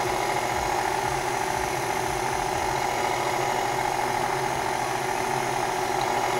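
Electric mixer motor running with a steady, even hum at constant speed while it mixes flour into a yeast bread dough.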